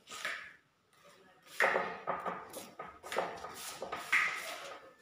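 A trowel scraping skimcoat across a wall in a few separate strokes, the longer ones about a second apart in the second half.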